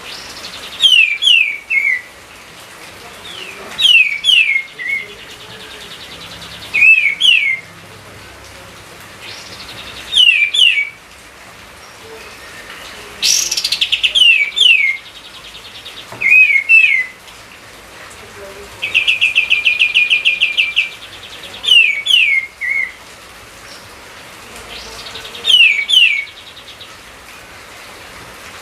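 A songbird repeating a short phrase of two or three quick, downward-slurred whistled notes about every three seconds. Twice the phrase is joined by a rapid rattling trill, the longer one about two-thirds of the way through.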